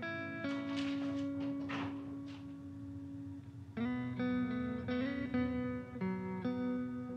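Background music: a guitar playing slow plucked notes that ring on, with a new chord coming in about four seconds in.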